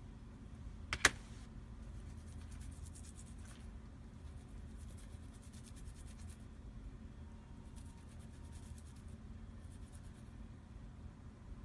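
One sharp click about a second in, then several spells of faint, fine crackling rub as fingertips pinch and rub the hairs of a wet mink false eyelash, tugging at them to check that no hairs shed.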